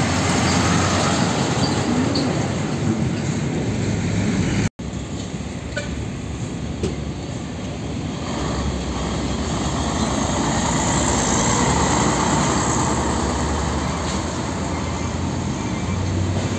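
Heavy diesel tanker trucks passing close by: engine running with tyre and road noise, swelling as a truck draws near. The sound breaks off for an instant nearly five seconds in.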